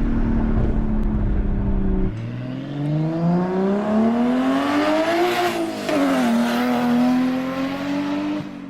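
BMW 135i's turbocharged straight-six, fitted with a near-straight-through exhaust and downpipe, running at a steady drone with a deep rumble. About two seconds in the rumble cuts out and the engine revs up, its pitch climbing for about three seconds. The pitch then drops sharply and settles into a steady drone again.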